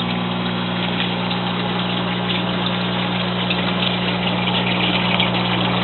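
Steady electric hum of an aquaponics system's pumps running, with water moving through the system as a hiss beneath it.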